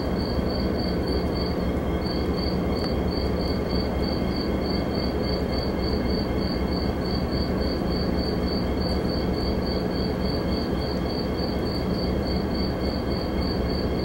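An insect chirping in an even, fast pulse, about three to four chirps a second, over a steady low rumble.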